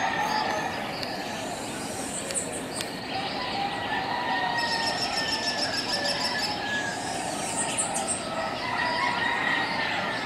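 Early-morning outdoor ambience: birds chirping and calling over a steady, dense background hiss. About halfway through, a fast, high-pitched ticking trill runs for a second or two.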